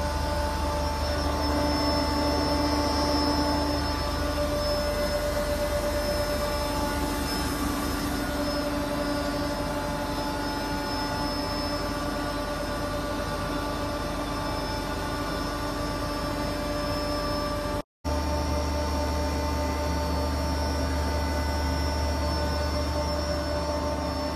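Walnut shell powder grinding mill (a disc crusher with its blower and cyclone) running steadily under load: a constant mechanical hum and whine over a rush of air as the powder is blown out of the discharger. It breaks off for an instant about two-thirds of the way through.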